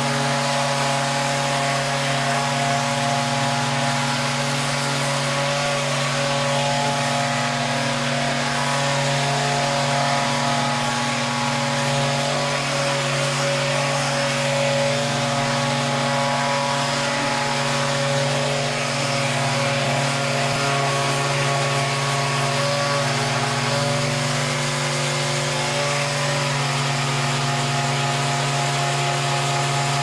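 Handheld electric massager running with a steady buzzing hum as it is worked over the lower back and hip muscles to loosen them.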